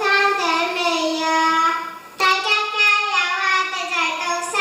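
Young kindergarten children singing a song, holding long, drawn-out notes, with a brief break about two seconds in before the next phrase.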